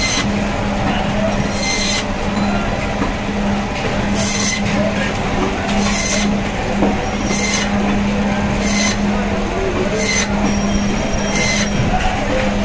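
Electric band saw (fish bone saw) running with a steady hum as pangas fish is pushed through the blade. Each slice gives a brief high hiss, about every one and a half seconds.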